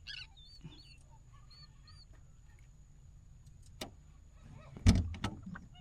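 Birds giving short, high, arching calls several times in the first two seconds, with a few light clicks, then one loud knock about five seconds in.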